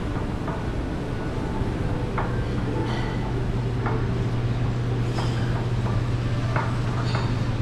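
Busy buffet-restaurant room tone: a steady low hum with scattered, irregular clinks of dishes and utensils.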